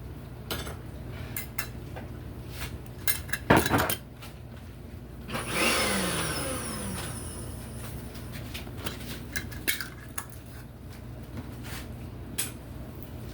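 Kitchen clatter of glass jars, lids and utensils being handled: scattered clicks and knocks, with a sharp knock about three and a half seconds in, over a steady low appliance hum. Around the middle a falling, whooshing sweep swells and fades over about two seconds.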